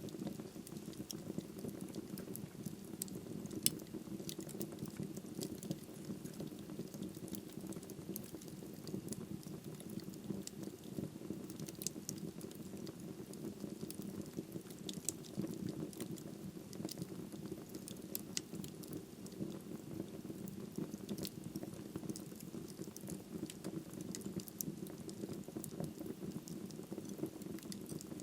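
Wood fire burning in a fireplace: a steady low rushing of the flames with frequent sharp crackles and pops from the burning wood.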